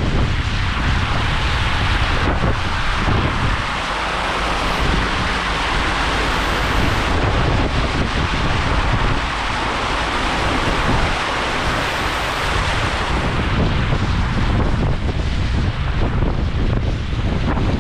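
Wind buffeting the microphone: a steady low rumble under a rushing hiss that swells through the middle and eases off toward the end.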